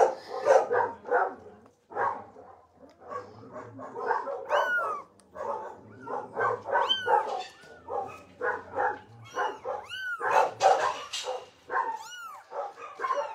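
Young kittens mewing: a few high, thin calls that rise and fall in pitch, against dogs barking over and over.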